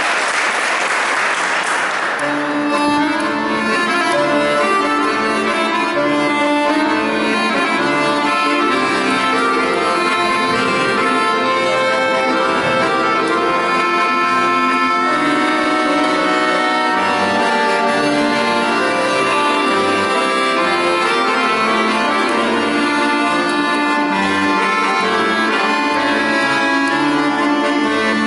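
Applause dying away in the first two seconds, then a piano accordion playing solo: a melody in chords over a regular, repeating bass pattern.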